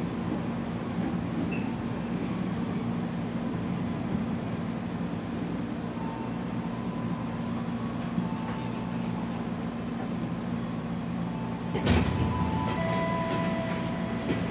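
Interior running sound of a 205-series electric commuter train motor car at speed: a steady low hum and rumble from the traction motors and wheels on the rails. A single sharp clack comes about twelve seconds in, and a few steady higher tones join just after.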